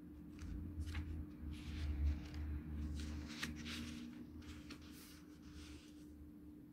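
Faint paper rustling and soft handling noises with a few light ticks, over a steady low hum.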